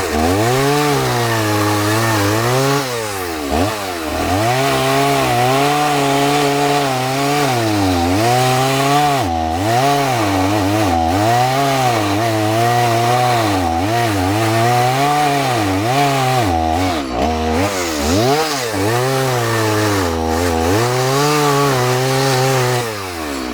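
Chainsaw with a 12-inch bar hogging wood out of a 22-inch log. The engine's pitch dips and rises again every second or two as the chain is pushed into the cut and eased off. It drops away right at the end.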